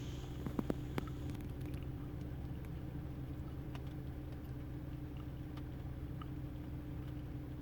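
Rain: scattered raindrops ticking and dripping over a steady low hum, with a few sharper drips in the first second.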